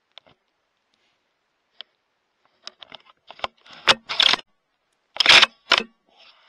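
Handling noise on a thermal rifle scope's built-in microphone: a few sharp clicks, then a run of irregular scraping and rubbing bursts, loudest about four and five seconds in.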